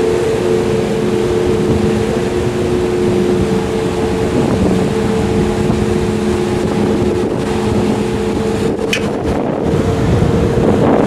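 Large car ferry under way: a steady machinery drone with a few low hum tones, over wind rushing on the microphone and churning propeller wash.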